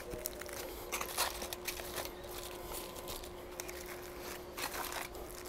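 Aluminium foil crinkling in scattered faint crackles as it is rolled and twisted tight around a log of dumpling mixture, with a faint steady hum underneath.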